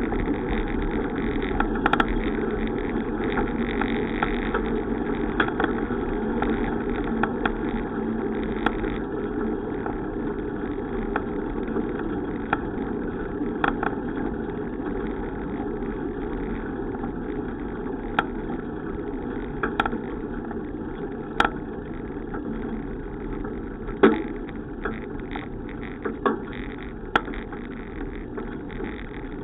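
Steady rushing and rolling noise of a bicycle ride, with scattered sharp clicks and knocks; the loudest knock comes about three-quarters of the way through.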